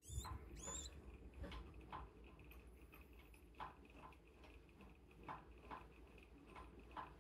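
Near silence with faint, light ticks at uneven spacing, roughly one or two a second, over a faint steady high hum; a brief rising squeak-like sound comes in the first second.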